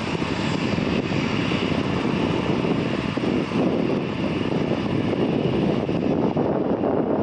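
Twin-engine widebody jet airliner's engines at takeoff thrust during its takeoff roll, giving a steady, dense noise.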